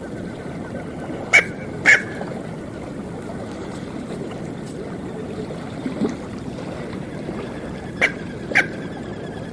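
Smew duck calling: two pairs of short, sharp yelping calls, one pair about a second in and another near the end, over steady background noise.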